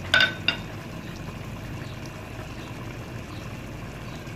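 A utensil clinks twice against the metal cooking pot near the start, each clink ringing briefly. Then the mutton curry simmers in the pot with a steady low bubbling hiss.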